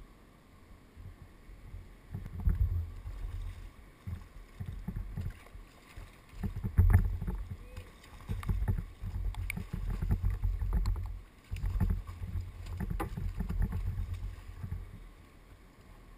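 Water sloshing and splashing against a kayak hull, with repeated low bumps and a few sharp knocks, as a hooked fish is fought and netted alongside.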